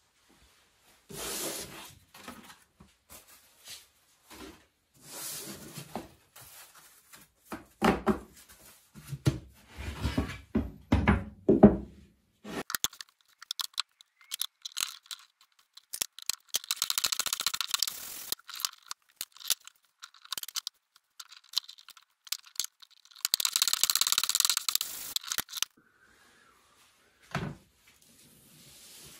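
Thin veneer sheets and MDF boards handled and knocked about on a workbench, then a hand plane taking two long strokes of about two seconds each along the edges of veneer clamped between MDF boards, jointing them for a glue-up.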